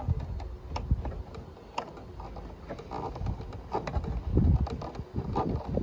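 A small screwdriver turning a screw in a reverse camera's mounting bracket: a few faint, scattered clicks and scrapes. Wind rumbles on the microphone throughout and is loudest about four and a half seconds in.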